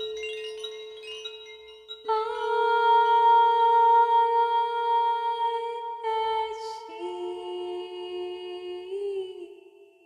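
A wordless voice humming long held notes of a mantra melody, changing pitch about two seconds in and again around six and seven seconds. A few soft chime-like notes sound at the start, and it fades away near the end.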